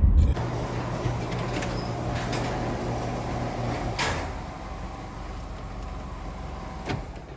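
A car's running engine and cabin hum, dropping in level just after the start. There is a single sharp click about four seconds in, and after it the hum goes on more quietly.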